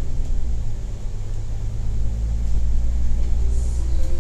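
Low, steady engine and road rumble from inside a moving double-decker bus. It eases slightly about a second in, then builds again.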